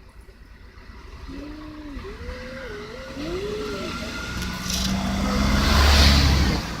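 A few drawn-out, wavering cries rising and falling in pitch, then a motor vehicle's engine hum building to a loud pass about six seconds in.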